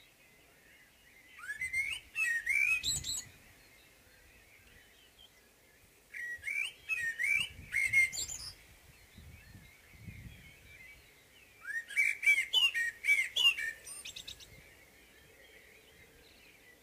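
Common blackbird singing its morning song: three phrases a few seconds apart, each a low warble ending in a high, rapid twitter. Fainter chirping from other birds goes on between the phrases.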